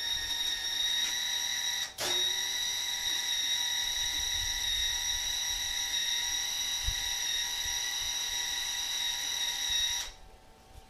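Wire-feed motor of a Harbor Freight Chicago Electric Flux 125 flux-core welder whining steadily as the gun trigger is held to feed wire. It breaks briefly with a click about two seconds in, starts again, and cuts off near the end.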